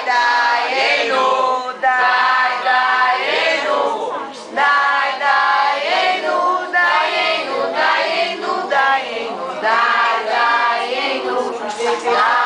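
A group of family voices, women and children to the fore, singing a Passover seder song together in short phrases.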